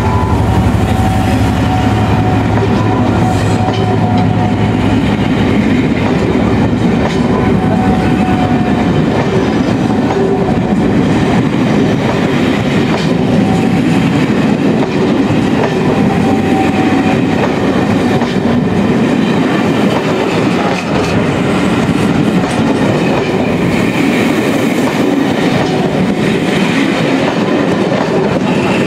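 Locomotive-hauled passenger coaches rolling past close by as the train pulls out, with a steady loud rumble of wheels on rail. A low hum stops about five seconds in.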